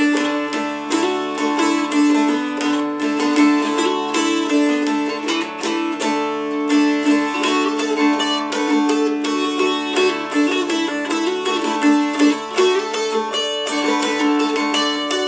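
McSpadden mountain dulcimer played solo: a quick run of strummed notes carrying an old-time fiddle tune over a steady drone note.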